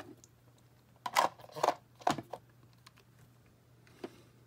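Small plastic parts of a miniature toy drink dispenser clicking and rattling as it is handled. Three short rattly clicks about a second in, and a light tap as it is set down near the end.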